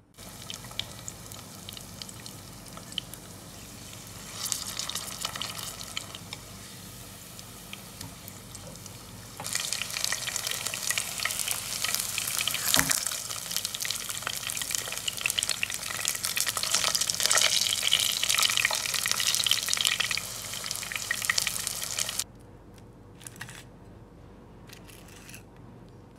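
Breaded chicken cutlets shallow-frying in hot oil in a pan: a steady crackling sizzle that grows louder about nine seconds in and cuts off suddenly a few seconds before the end, leaving a few light clicks.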